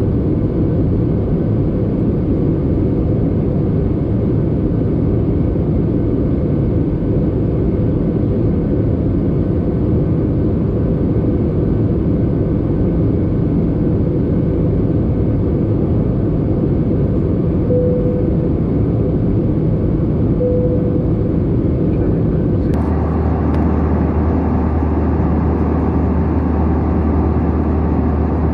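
Steady noise of a jet airliner in flight, heard from inside the cabin: engines and rushing air. About 23 seconds in, the sound changes abruptly to a different steady drone with a strong low hum.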